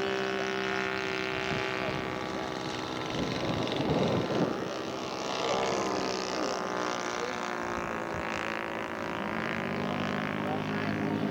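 Engine of a large radio-controlled scale model airplane running steadily. Its pitch climbs and holds higher near the end as it is throttled up.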